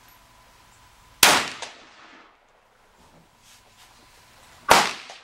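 Two rifle shots about three and a half seconds apart, each a sharp crack that dies away in under a second. The first is a Winchester Model 70 bolt-action rifle in .270 Winchester.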